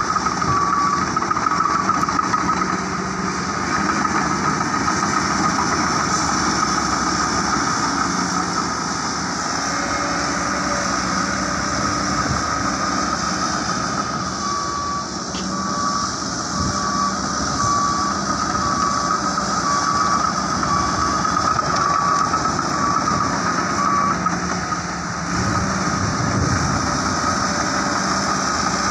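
Diesel engine of a heavy earthmoving machine working steadily, with its reversing alarm beeping at an even pace, about one beep a second, near the start and again for about ten seconds from the middle on.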